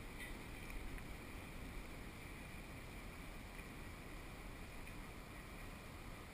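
Wind rumbling on the microphone over the faint wash of water around a small plastic kayak drifting on open river water, with a couple of small ticks in the first second.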